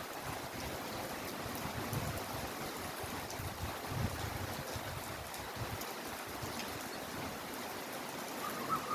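Heavy rain falling steadily, an even hiss of water, with a few faint low rumbles now and then.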